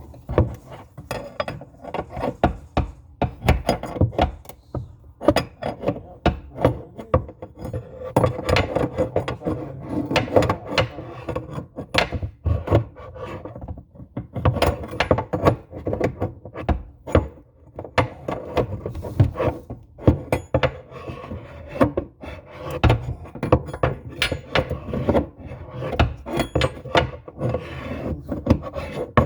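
A wrench scraping and clicking against a faucet nut as it is worked loose: an uneven run of short scrapes and knocks, several a second.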